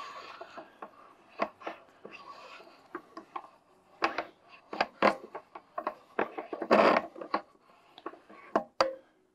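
Clicks, knocks and rubbing of metal and plastic telescope parts being handled as the old focuser is worked loose and removed from the rear of a Celestron EdgeHD 11" telescope. Irregular sharp clicks throughout, with a louder scrape about seven seconds in.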